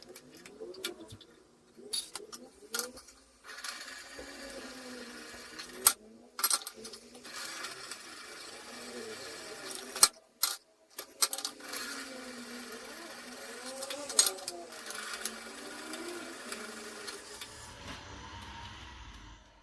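A small handheld power tool motor runs in three bursts of several seconds each, its pitch wavering as it works under load, with sharp clicks and knocks between the bursts.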